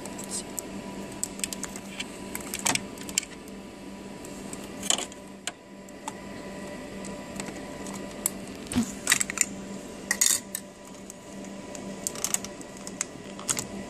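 Scattered clicks, taps and light clatter of a coffee machine's milk nozzle parts being taken out and handled, over a steady hum.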